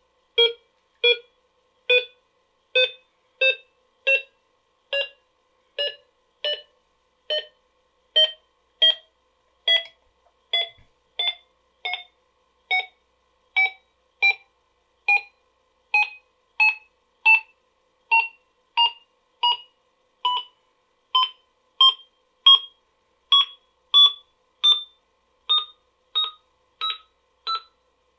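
BBC Master computer beeping steadily, a short beep a little over once a second, while the Cumana disk formatter formats a floppy disk. The beeps rise gradually in pitch as the format progresses.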